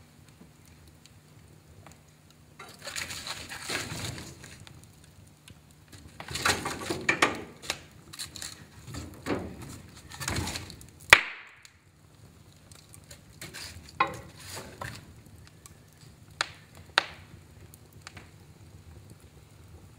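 Wood fire in a fireplace crackling in uneven bursts, with several sharp pops and snaps; the loudest snap comes a little past halfway.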